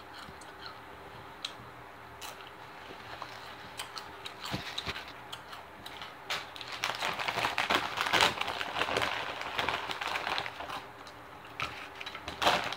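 Crunching on Spicy Nacho Doritos tortilla chips close to the microphone: faint scattered crunches at first, then a dense run of crisp crunches through the middle. Near the end comes another flurry as the crinkly chip bag is handled.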